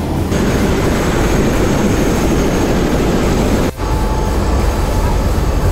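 Helicopter engine and rotor noise: a loud, steady rush with a low hum, broken by a brief drop about two-thirds of the way through.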